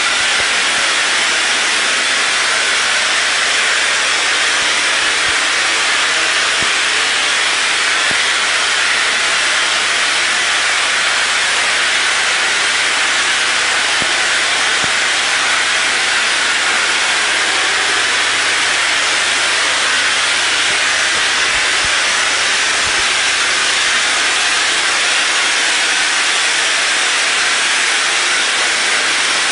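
Spray gun on a thick hose spraying wall filler (spackle) onto a wall: a loud, steady hiss with a faint low hum underneath.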